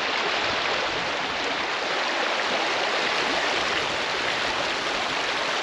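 Shallow stream running over rocks and stones: a steady rush of water.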